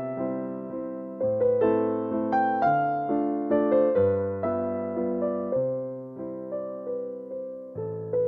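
Background music: a keyboard piano plays a gentle melody. Each note is struck and dies away, about two notes a second.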